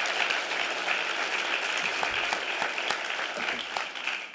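Audience applauding, a steady clatter of many hands clapping that eases slightly near the end.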